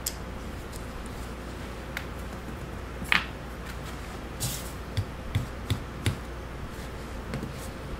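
Scattered small metal clicks and taps, the sharpest about three seconds in and a few quick knocks a couple of seconds later, as a part is worked by hand into the bore of a cast-iron hydraulic control valve body.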